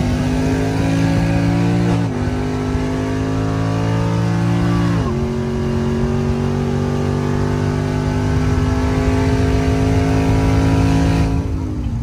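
Car engine at full throttle in a racing pull, its pitch climbing steadily and dropping sharply twice, about 2 and 5 seconds in, as it shifts up a gear. Near the end the revs fall away as the throttle is lifted.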